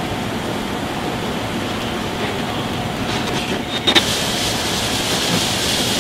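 Steady rushing noise of a busy commercial kitchen at work. A sharp clink comes about four seconds in, and after it a brighter hiss joins.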